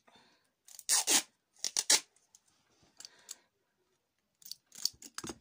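Sellotape being pulled off the roll and handled for cutting, in short scratchy bursts: once about a second in, twice near two seconds, and again near the end.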